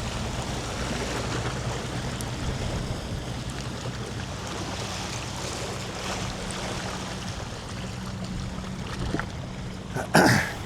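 Wind buffeting the microphone over shoreline water noise, with a low steady hum underneath. A short, loud rustle or bump comes about ten seconds in.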